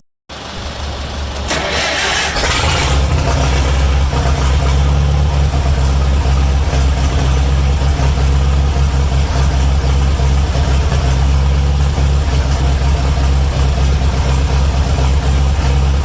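Engine starting: it catches about two seconds in with a burst of noise, then settles into a steady idle.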